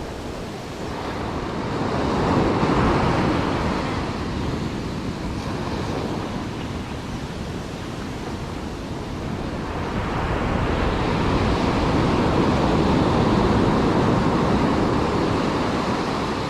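Surf breaking and washing up a beach, swelling twice: a wave about two seconds in and a longer one from about ten seconds in.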